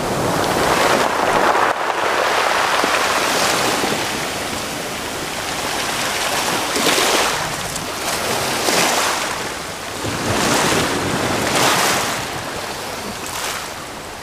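Small waves washing up over a pebble and rock shoreline and draining back, surging every couple of seconds.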